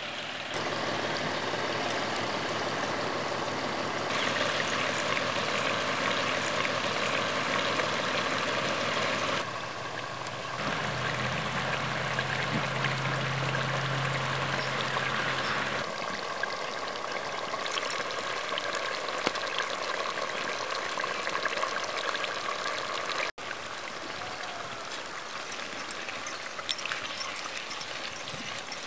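Fish curry simmering in a clay pot over a wood fire: a steady bubbling hiss, with scattered small crackles in the later part. A low hum joins for a few seconds in the middle.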